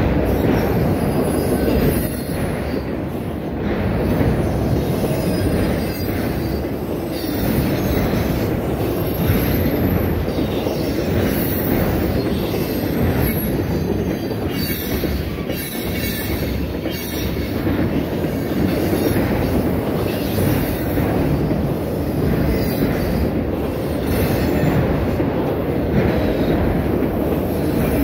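Freight train cars (autoracks and a boxcar) rolling past close by: a steady, loud rumble and rattle of steel wheels on the rails, with irregular clanks.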